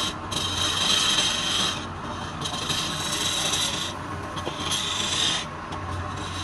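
Wood lathe running with a steady low hum while a tool scrapes against the spinning wood in repeated passes of about a second or so each, a hissing rasp that starts and stops several times.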